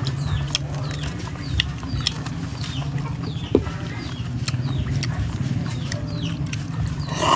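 Birds cheeping, short falling calls repeated about twice a second, over a steady low hum. Light scattered clicks of a toothpick against snail shells.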